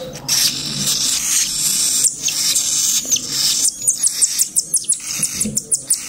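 Baby cockatiel chicks begging to be fed: a raspy, hissing begging call that turns into a fast run of short, very high squeaks in the second half.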